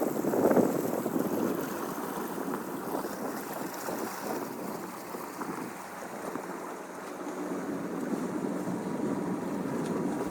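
Water rushing and splashing along a sailboat's hull under sail, with wind buffeting the microphone. A louder surge of splashing comes in the first second or so, then the rush settles to a steadier level.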